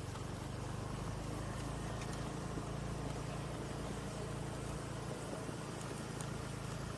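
Small motorcycle engine running steadily while riding, with a low hum of road and wind noise and one short tick about two seconds in.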